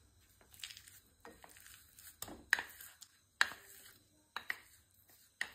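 A wooden spatula taps and scrapes against a glass bowl, knocking grated jaggery out into a pan. It gives about seven sharp, irregular clinks. The jaggery has set firm and sticks to the bowl.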